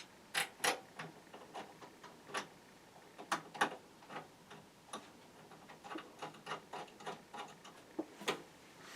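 Irregular light clicks and ticks of a screwdriver driving screws into the metal bracket of a hard-drive bay in a PC case, some twenty sharp clicks with uneven gaps.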